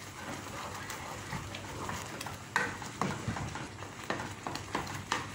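Wooden spatula stirring a thick, sticky mango puree and milk powder mixture in a nonstick pan over a gas flame, with irregular soft knocks and scrapes against the pan as the mixture cooks down.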